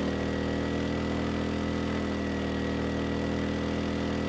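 Erayak 4500PD dual-fuel inverter generator's 150 cc engine running steadily on propane under a 3,000-watt load, holding an even speed with no strain. A faint, thin, steady high whine sits above the engine note.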